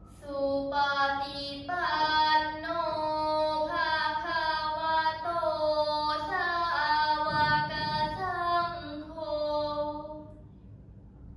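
A group of girls chanting a Thai Buddhist prayer in unison, in a melodic sung style, phrase after phrase. The chanting stops about ten seconds in.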